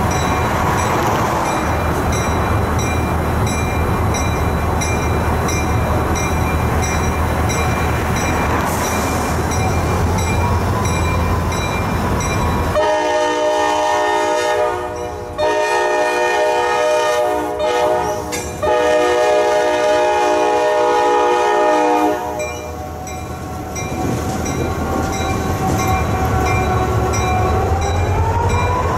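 CSX diesel locomotive running with its bell ringing steadily at about two strokes a second. Its air horn then sounds in three blasts, the last the longest. Near the end, as the locomotive passes close by, its engine sound rises in pitch.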